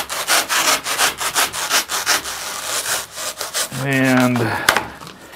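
Serrated knife sawing through hardened expanding foam in quick back-and-forth strokes, about five a second, which die away about three seconds in. A sharp click comes near the end.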